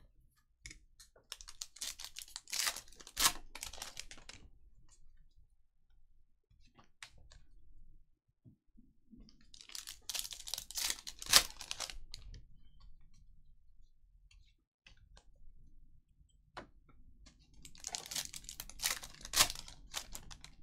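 Foil trading-card pack wrappers being torn open and crinkled by hand: three bouts of crackling and tearing several seconds apart, with light clicks between them.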